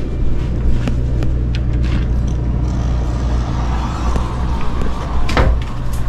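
Steady low hum of a motor yacht's running machinery, with scattered light clicks and a louder knock about five and a half seconds in.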